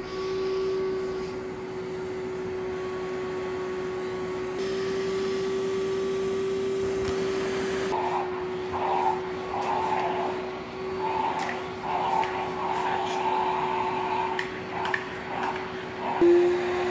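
Pet grooming vacuum running with a steady whine while its brush attachments are drawn through a cat's fur. In the second half the air noise rises and falls unevenly as the brush head works over the coat.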